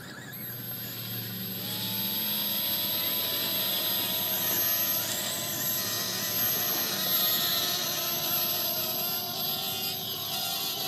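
Hubsan quadcopter's small electric motors and propellers whirring in flight. The sound grows louder over the first couple of seconds, then holds, its pitch wavering slightly.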